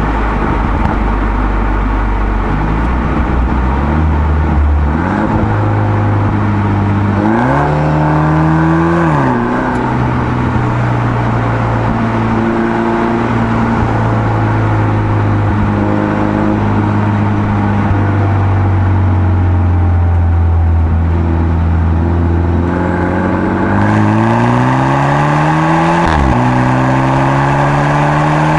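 BMW F30 320i's turbocharged 2.0-litre four-cylinder engine running through an aftermarket Aura end-muffler exhaust while driving. It holds a steady drone at even revs, with two pulls where the note climbs: one about eight seconds in that eases off, and one near the end that drops sharply at an upshift and then climbs again.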